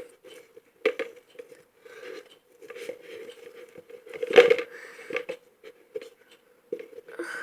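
Slime being stirred in a small cauldron: irregular scraping and knocking of the stirrer against the pot, with the loudest knock about four and a half seconds in.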